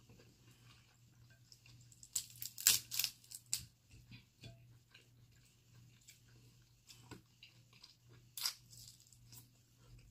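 Dungeness crab shells being cracked and picked apart by hand: clusters of sharp cracks and snaps about two seconds in and again near eight seconds, with softer shell clicks and chewing in between, over a low steady hum.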